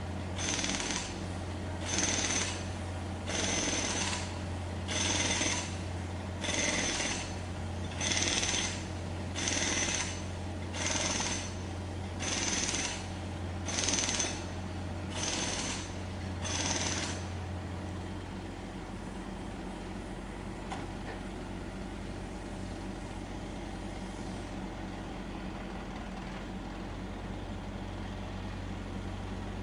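Jackhammer hammering in short bursts, about one every second and a half, over a steady low engine drone. The hammering stops about two-thirds of the way through, leaving the engine drone running on.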